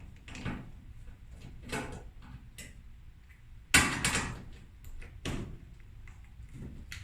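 Scattered clicks and scrapes of a screwdriver and screws being worked out of the metal vent housing on a Kenmore dryer, with one sharper knock a little under four seconds in.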